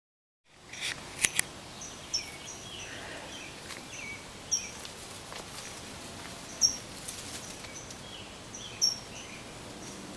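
Birds chirping: short high chirps, each falling in pitch, repeated every two seconds or so over a steady outdoor hiss, with a couple of sharp clicks about a second in.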